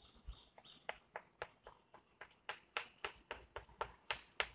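Chalk striking and scraping a chalkboard in a quick series of short strokes, about four sharp ticks a second from about a second in, as short rays are drawn one after another.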